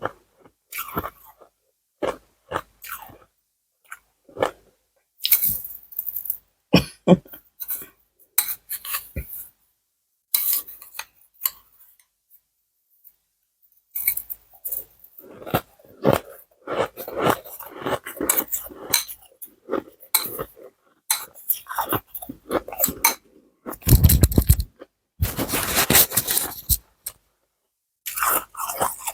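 Ice being chewed close to the microphone: irregular crunches and cracks, pausing for about two seconds near the middle, then coming thick and loud through the second half.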